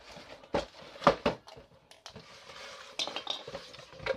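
A small cardboard toy box and its contents being handled by hand: a few sharp knocks and taps, the loudest about a second in, then scraping and rustling of the packaging around three seconds in.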